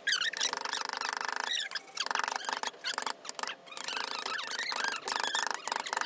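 Steel carving chisel cutting through softwood, squeaking and rasping in stretches as shavings peel away, with a few short knocks that fit a wooden mallet striking the chisel handle.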